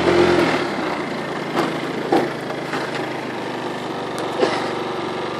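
Small motor scooter engine running while riding over a dirt road, a little louder at first, then steady, with a few short knocks.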